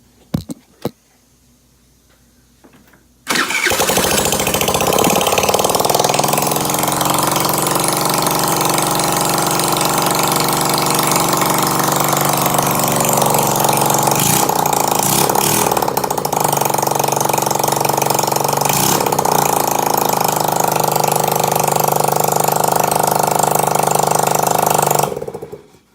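Two clicks, then a 50cc scooter engine with its muffler removed starts about three seconds in, running loud and steady through the open exhaust, and is shut off near the end.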